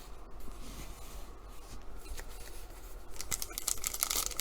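Soft handling noises, then from about three seconds in, crisp crinkling and tearing of a trading-card pack's wrapper being opened.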